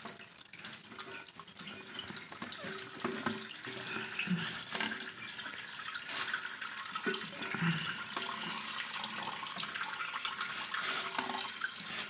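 Water running and trickling steadily in a ceramic toilet cistern, with a few faint knocks as the plastic flush valve is handled. The flush valve is not seated properly, so water is getting past it where it should not.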